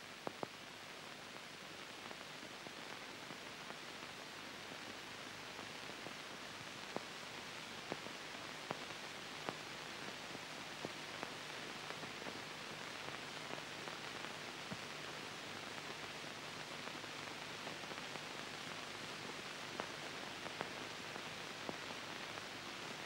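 Steady hiss with scattered faint clicks and pops and a faint low hum: the background noise of an old film soundtrack.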